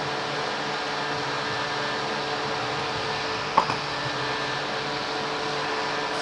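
Steady hum of a running machine with a few constant tones, and one short sharp click about three and a half seconds in.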